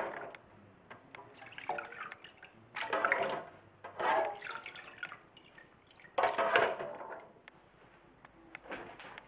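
Cleaning liquid splashing and dripping in a parts washer tub, with metal parts soaking in a wire basket, in four or five short bursts.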